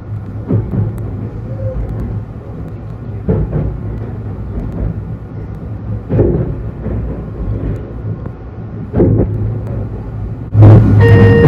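Running noise of a 253-series electric train heard from inside the passenger car: a steady low rumble with a short knock roughly every three seconds. Background music comes in loudly near the end.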